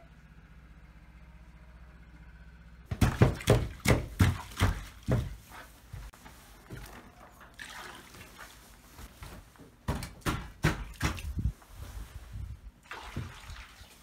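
A run of loud, irregular knocks and thuds starting about three seconds in, then a stretch of rushing noise, then a second run of knocks about ten seconds in, followed by more rushing noise.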